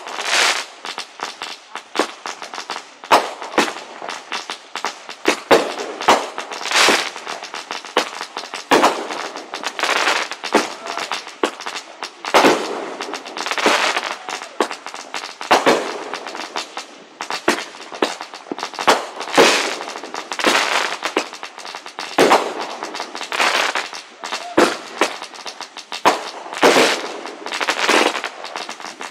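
A fireworks display going off overhead: a dense, continuous run of sharp bangs and crackles, with louder bursts every second or two.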